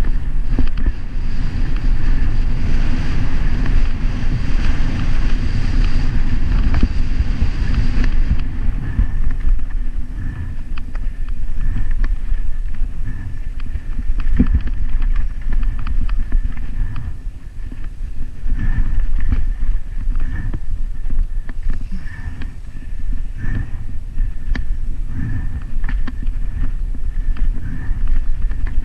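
Mountain bike descending fast: wind buffeting the handlebar-mounted camera's microphone over the rumble of tyres on the trail, with frequent rattles and knocks from the bike over rocks and roots. A gravel hiss fills the first eight seconds or so, then drops away as the track turns to dirt singletrack.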